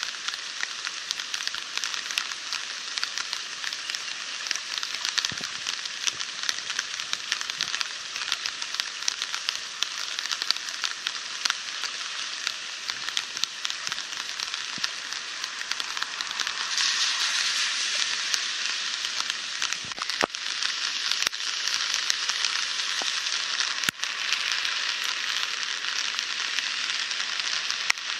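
Swollen, overflowing creek rushing past in flood: a steady crackling hiss of fast water, growing louder about two-thirds of the way through.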